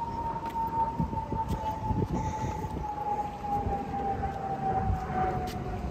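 A siren holding a single tone that slowly sinks in pitch, like a mechanical siren winding down, over a low rumble.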